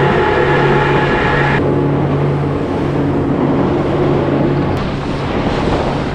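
Twin Honda 90 outboard motors running steadily, with the rush of water and wind noise. The higher part of the engine note drops out abruptly about a second and a half in.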